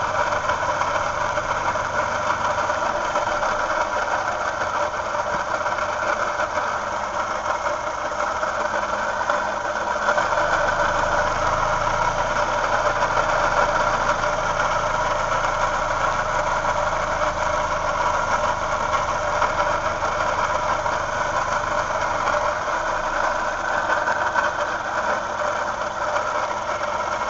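2007 Toyota Yaris engine running at idle with a steady, multi-toned whine, which the owner places on the left side of the engine by the accessory-drive pulleys. From about ten seconds in it gets a little louder, with a low hum added, then eases back near the end.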